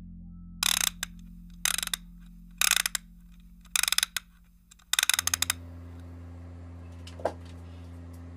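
Five short bursts of rapid mechanical clicking, about a second apart, over a steady low hum; a single faint click comes near the end.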